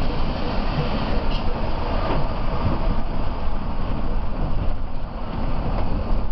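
Mercedes-Benz OH 1526 coach under way, heard from inside the cabin: the steady low rumble of its rear-mounted diesel engine mixed with road noise.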